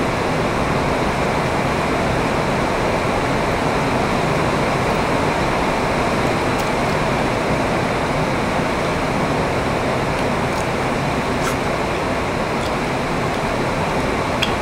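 Steady, fairly heavy rain: an even rushing hiss, with a few faint clicks near the end.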